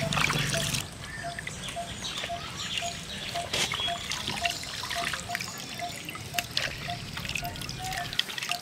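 Water trickling and dripping with small splashes as bottle gourd leaves are swished by hand in a metal bowl of water and lifted out.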